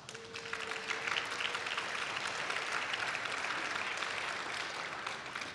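Audience applauding, building up in the first second and tapering off near the end.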